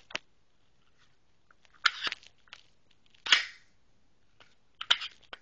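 Glock 27 pistol being handled for a safety check: a series of sharp metallic clicks and clacks as the magazine is released and the slide is worked. A few separate groups of clacks, the loudest a little past the middle.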